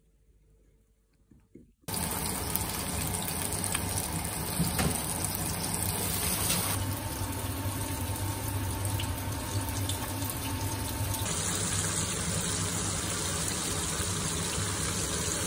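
Powder-coated chicken wings frying in hot oil in a pan: a loud, steady sizzle that starts suddenly about two seconds in, after a near-quiet start.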